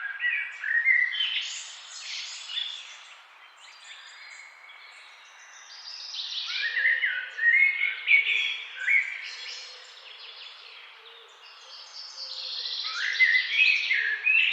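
Forest songbirds singing in three bursts of quick, varied warbling phrases, about six seconds apart, over a steady hiss of flowing river water.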